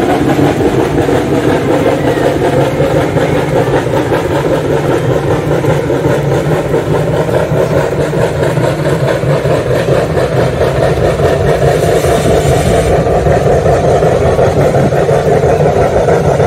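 A heavy engine running steadily at close range, with a dense rapid beat and a hum that slowly rises in pitch.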